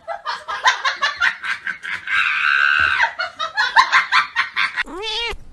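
A person laughing hard in quick bursts, with a held high squeal about two seconds in and a short rising-and-falling cry near the end.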